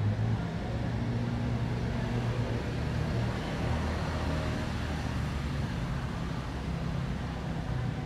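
Steady city street-traffic ambience: a low rumble of passing and idling vehicles with a shifting engine hum.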